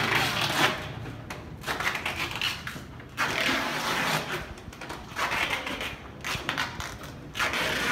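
Packaging rustling and crinkling as it is handled, in irregular bursts.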